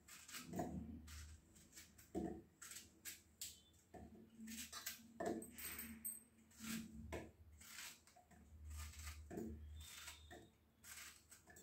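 Knife cutting peeled raw green banana into chunks, with the pieces dropping into a steel mixer-grinder jar: a faint, irregular series of clicks and soft knocks.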